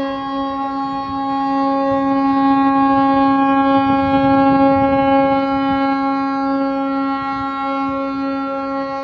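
River cruise ship's horn sounding one long, steady blast at a single pitch, a little louder about four seconds in: the ship's departure signal as it leaves.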